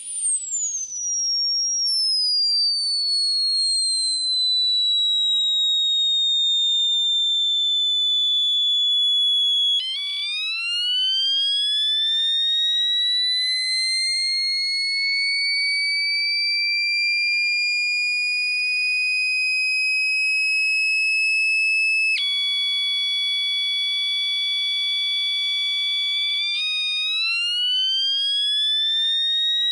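Homemade microcontroller-driven electronic siren imitating a factory siren, sounding a single pitched wail. It first slides slowly down in pitch. About ten seconds in it drops low and winds up gradually, like a motor siren spinning up. A little past twenty seconds it switches abruptly to a steady lower tone, then winds up again near the end.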